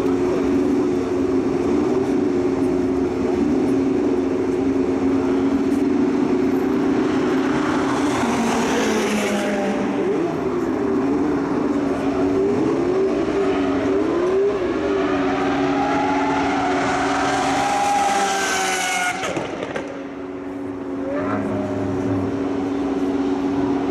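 Luxury cars' engines running on a circuit during a free-run session. A steady engine drone gives way to several cars revving and passing, their pitch rising and falling, then the steady drone returns.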